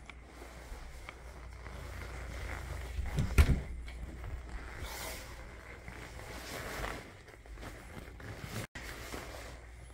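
Footsteps on carpet and clothing rustle as someone walks through a small room, with a low steady rumble underneath and a single thump about three and a half seconds in.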